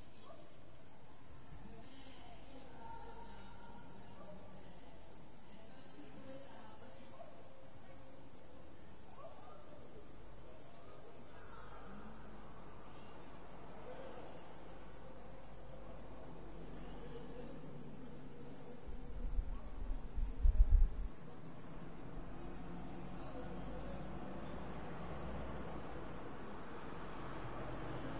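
Crickets in a steady, high-pitched evening chorus of trilling, with no break. About two-thirds of the way through, a brief low rumble rises above it.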